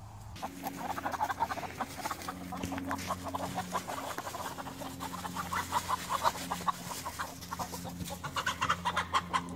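Chickens clucking, a quick run of short clucks that keeps up, getting louder and busier near the end, over a low steady hum.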